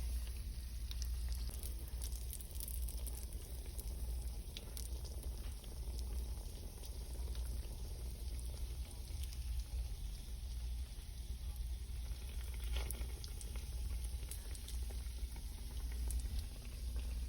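Donuts frying in hot oil: a steady bubbling sizzle full of fine crackles, over a steady low hum.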